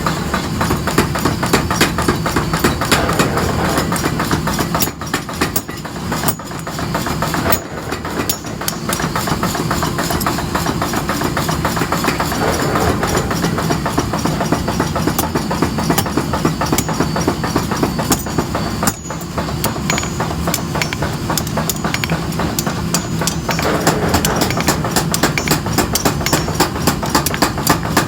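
Rapid, continuous hammer blows on hot metal being forged into tongs, many strikes a second, over a steady machine hum.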